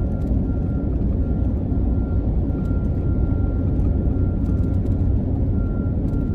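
Steady low rumble of tyre and engine noise from a car driving at about 55 mph, heard from inside the cabin, with a faint thin high whine running through it.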